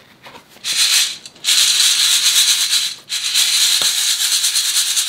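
Freshly roasted coffee beans pouring and rattling out of a stainless steel Daiso hand pot: a dense dry rattle, briefly just under a second in, then steady from about a second and a half in, with a short break near three seconds.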